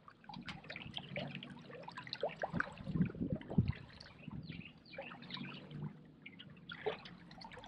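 Water trickling and lapping at the side of a small fishing boat, with scattered light splashes and knocks.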